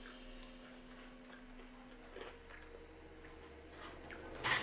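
Faint eating sounds: quiet chewing of mini pizzas with a few small clicks, the sharpest near the end.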